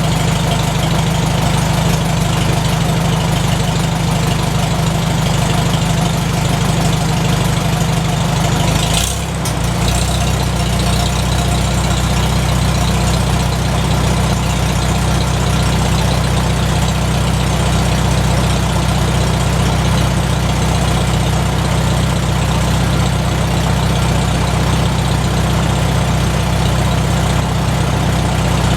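McCormick Deering W-4 tractor's four-cylinder engine running steadily at idle, with a brief break about nine seconds in.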